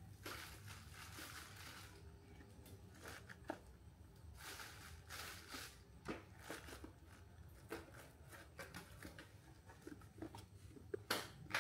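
Faint handling noise: scattered light clicks and brief rustles of small parts and materials being worked by hand, with a sharper click near the end.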